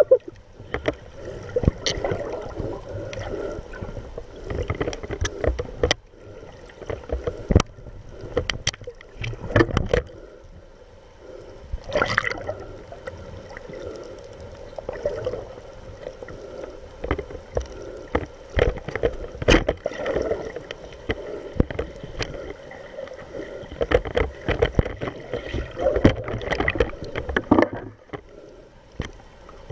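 Muffled underwater noise picked up by a submerged camera: water rushing and bubbling around the housing, with irregular knocks and clicks throughout.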